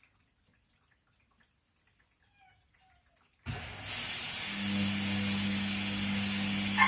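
Washing machine standing quiet between stages, then about three and a half seconds in water suddenly rushes in with a steady hiss, and a steady low hum joins about a second later. A short sharp sound stands out near the end.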